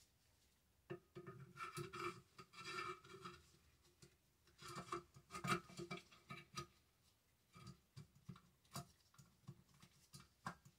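Faint, irregular clicks, taps and rubbing as the Remington 870 Tac-14 shotgun's trigger group is worked back into the receiver by hand, with a few sharper clicks late on.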